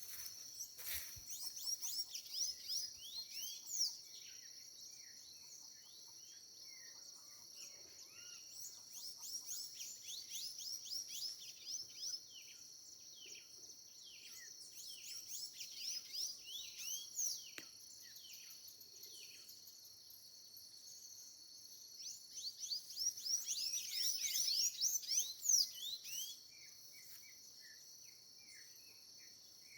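Birds chirping and singing in recurring bursts of quick, sweeping high notes, loudest in a dense burst near the end. Underneath runs a steady, high, shrill drone of insects such as crickets.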